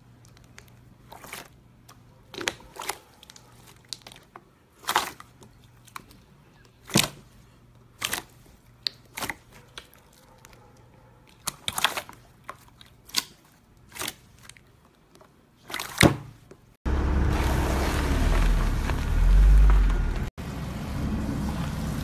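Hand pressing and squeezing glossy silver slime, with sharp pops and clicks of trapped air bursting, about one a second. About seventeen seconds in it changes abruptly to the steady rumble of a car tyre rolling over a pile of slime on asphalt.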